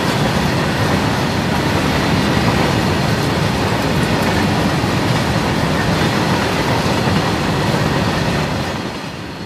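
BCNA covered freight wagons rolling past on the rails, a steady loud rolling noise of wheels on track that gets quieter near the end.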